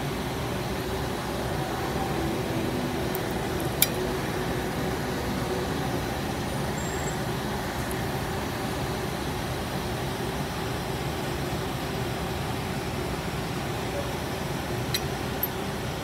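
Steady background rumble and hiss, with a sharp click about four seconds in and a fainter click near the end.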